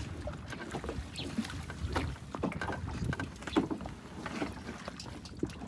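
Water splashing against a small wooden boat, with scattered knocks and clatter from people moving about in it.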